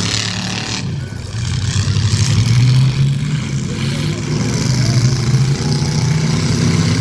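Several demolition derby cars' engines running loudly and revving, with a brief drop in level about a second in.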